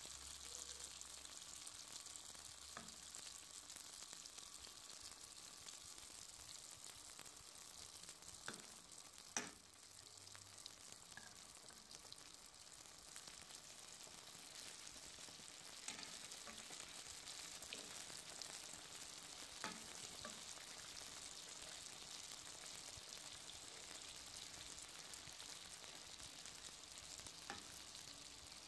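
Hot oil sizzling steadily around ring doughnuts deep-frying in a pan, with a few sharp clicks, the loudest about nine seconds in.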